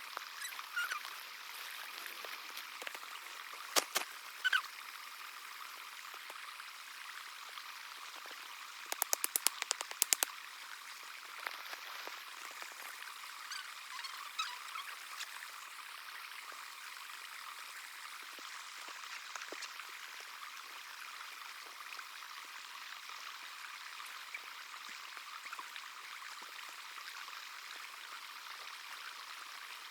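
Steady hiss of running water, with a few sharp taps about four seconds in and a quick run of taps near ten seconds.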